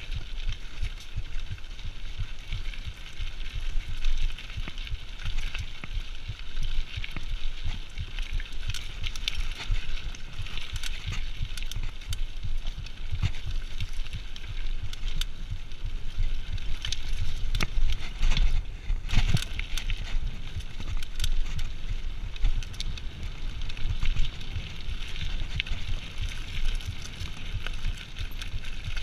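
Giant Reign mountain bike rolling fast over a gravel trail: tyres crunching and crackling on loose stones, the bike rattling, and wind rumbling on a chest-mounted GoPro.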